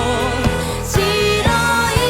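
Pop song: a singer's voice over a band, with a steady kick drum about twice a second.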